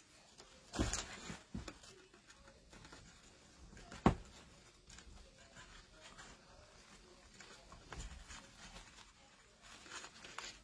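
Wired ribbon and starched cotton fabric rustling and crinkling as a bow's loops are handled and tied together at the center, with one sharp click about four seconds in.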